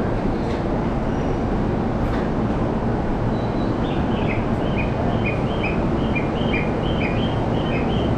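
Railway station ambience: a steady rumble of trains and crowd. About four seconds in, a high two-note chirp begins, repeating rapidly and regularly.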